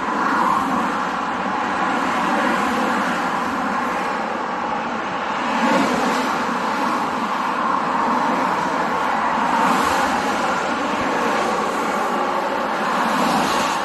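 Steady vehicle traffic noise, swelling and easing a few times as vehicles pass.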